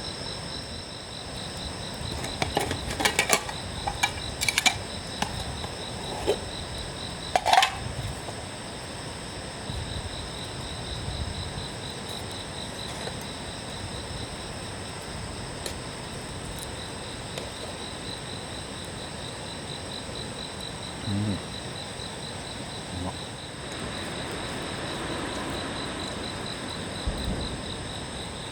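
A steady chorus of insects, with a high pulsing trill over several other steady high-pitched songs. A few sharp clicks and knocks come between about two and eight seconds in, the loudest a little before eight seconds.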